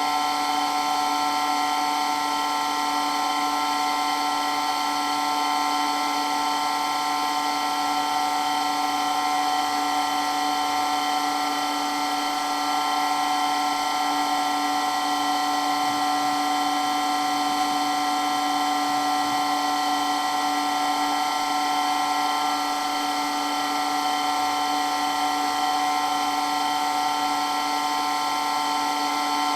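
Electric water pump running continuously with a steady high-pitched whine over a constant hum.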